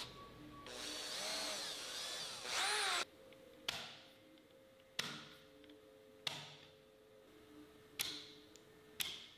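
Cordless drill-driver driving screws in short bursts, its motor whine rising and falling for about the first three seconds. This is followed by five sharp clicks about a second apart.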